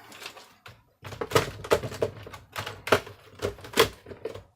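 Hard plastic parts of a Miele vacuum cleaner clicking and knocking as they are handled and fitted together during reassembly. An irregular run of sharp clicks, about two or three a second, starts about a second in.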